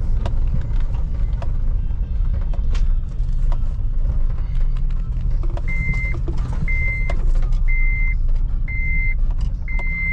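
Cabin sound of a 2007 Honda Element's 2.4-litre four-cylinder with its modified exhaust, driving, with a steady low rumble and occasional sharp knocks. About halfway through, a short high electronic beep starts repeating about once a second.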